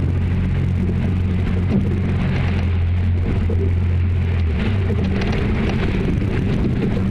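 Outboard engines of a rigid inflatable lifeboat running at sea, a steady low hum whose lowest note drops away about four and a half seconds in, under a constant hiss of spray, chop against the hull and wind on the microphone.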